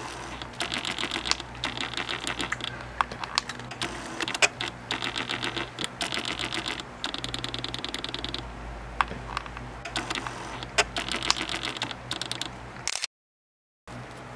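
A cat crunching dry, crunchy treats: rapid chewing clicks in runs of about a second with short pauses between. The sound cuts out for about a second near the end.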